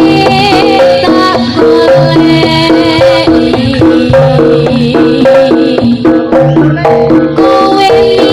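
Loud live Javanese jaranan music: hand drums keep a steady beat under a melody of held, stepping notes and a low bass line.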